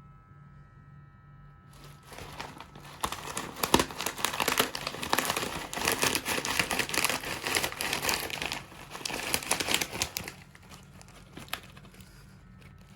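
Dry, crunchy nimko snack mix crackling and crunching for about eight seconds, as if being crushed, over a low steady hum.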